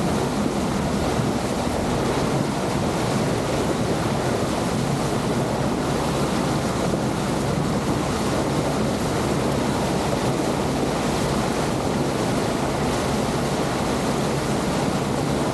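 Wind buffeting the microphone and water rushing past the hull of a Ranger R27 tug under way, with the boat's engine as a steady low hum beneath.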